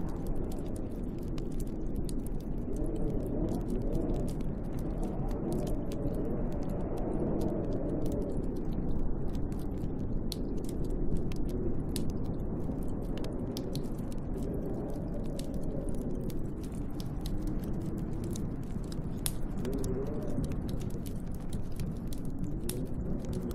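Wind with a wavering howl that rises and falls over a low rush, and a wood fire crackling with many small, sharp pops throughout.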